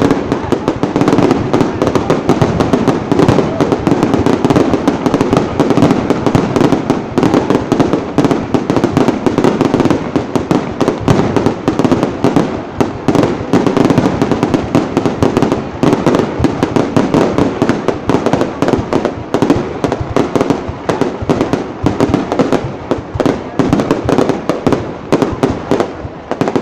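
Fireworks display: a dense, continuous barrage of bangs and crackling explosions with no pauses.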